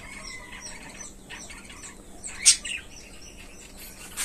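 Budgerigars chirping: scattered short, high chirps, with one louder chirp about two and a half seconds in.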